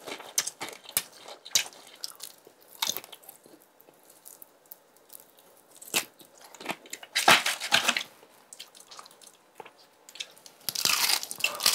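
Close-miked eating of crispy fried chicken: bites and chewing with scattered crunches of the crust. Near the end comes a louder, denser run of crackling as the crispy piece is torn apart by hand.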